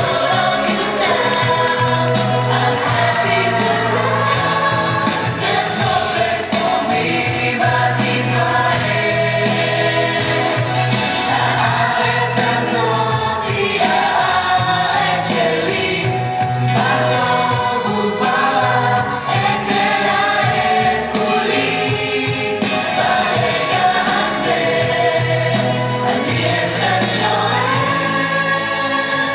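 A youth vocal troupe singing a song together as a group, over steady instrumental backing.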